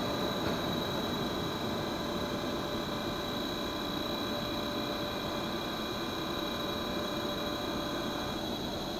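Electric locomotive standing at the platform with its train, running a steady hum and whir with a thin high whine on top.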